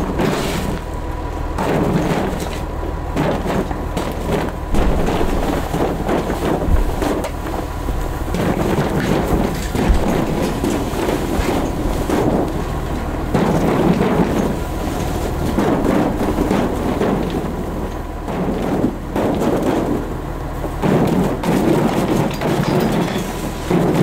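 Snowstorm wind rumbling and buffeting against the fabric cover of a hoop-barn shelter in uneven gusts, over a steady low rumble of wind.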